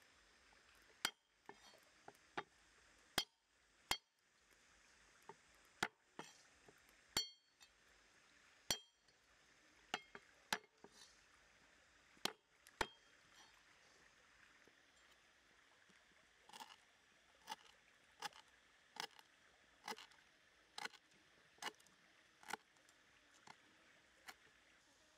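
Cleaver blade striking a wooden cutting board while cutting garlic, chillies and green herbs: scattered sharp knocks, some with a brief metallic ring, in the first half, then a steady run of chops, a little faster than one a second, in the last third.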